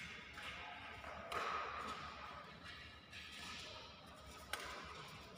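Badminton rally: racket strikes on the shuttlecock, a handful of sharp hits a second or two apart, each echoing in the hall.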